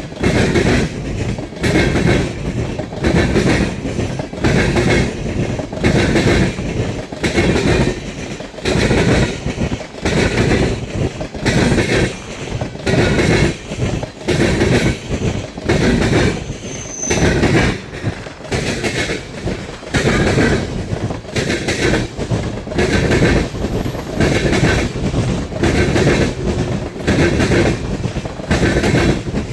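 Norfolk Southern freight cars rolling past, their wheels clacking over the rail joints in a steady rhythm of about one clack group a second, with a short wheel squeal about halfway through.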